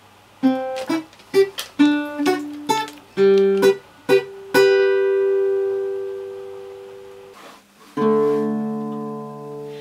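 Plucked string instrument, guitar or ukulele, playing a short melody of single notes, then one long ringing note. About eight seconds in, a chord is struck and left to ring.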